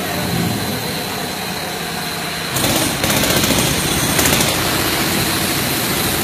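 PVC fibre-reinforced garden hose production line running: steady machine noise with a thin high whine throughout, getting louder about two and a half seconds in.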